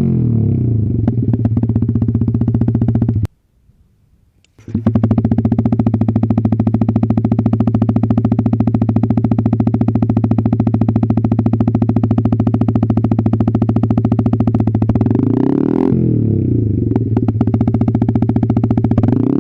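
A Yamaha XSR 155 single-cylinder engine idles steadily through an SC Project aftermarket exhaust with no silencer fitted. The sound drops out for about a second a few seconds in, then the engine runs again at a steady idle. The engine speed wavers briefly near the end.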